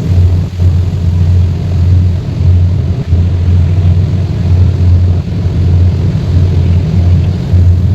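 Strong wind buffeting the microphone aboard a fast-moving boat, a loud low rumble that swells and dips irregularly.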